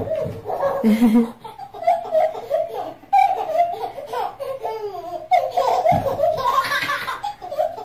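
A young child laughing hard in long runs of high giggles, with a couple of low knocks near the start and about six seconds in.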